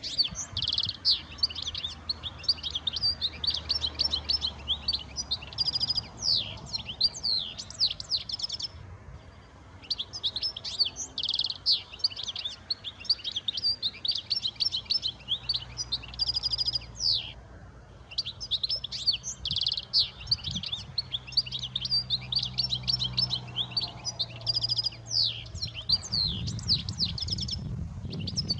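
European goldfinches singing: long runs of rapid, twittering notes, broken by two short pauses.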